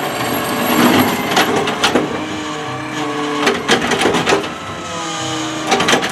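Automated side-loading garbage truck working its lifting arm: the engine and hydraulics run steadily under load as the arm raises a wheeled cart to tip it into the hopper. Several sharp clunks and knocks are heard along the way.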